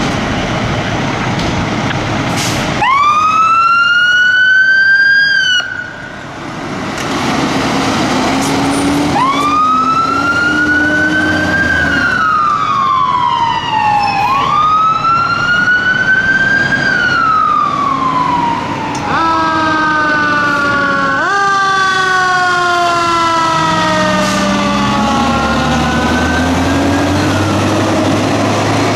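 Fire engine sirens wailing, rising and falling in slow sweeps as the engines respond. One siren starts about three seconds in and breaks off briefly near six seconds before wailing again. From about nineteen seconds a second siren overlaps, out of step, over the trucks' engines pulling away.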